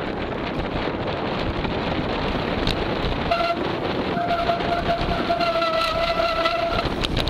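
Bicycle brakes squealing: a steady, mid-pitched howl with overtones starts about three seconds in and lasts about three and a half seconds. Behind it is continuous wind and trail rolling noise.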